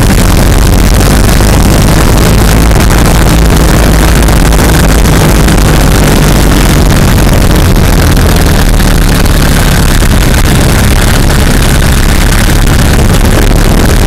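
Vehicle driving along, heard from a camera mounted under the front end beside the wheel: a loud, steady mix of the engine's low drone with tyre and road noise.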